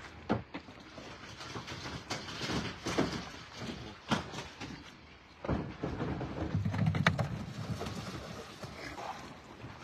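Live carp and water sloshing in a plastic tub, with knocks as the tub is handled. About five and a half seconds in, a rush of water as the tub is tipped down a wet chute and the carp splash into the lake.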